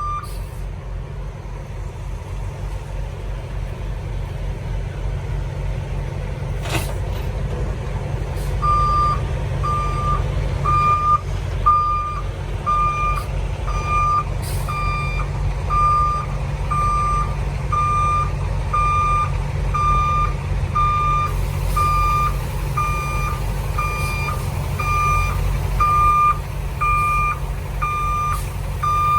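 Semi tractor's diesel engine running low while reversing under a trailer. From about nine seconds in, a reversing alarm beeps steadily about once a second. A single sharp click comes a few seconds before the beeping starts.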